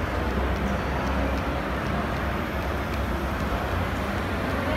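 An H0-scale Märklin model train, a diesel locomotive hauling coal wagons, running along the track with scattered faint clicks, over a steady hall din with a deep rumble.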